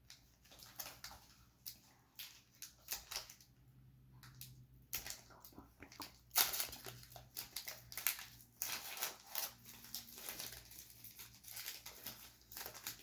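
Foil wrapper of a Pokémon card booster pack crinkling and tearing as it is opened by hand, an irregular run of rustles and crackles.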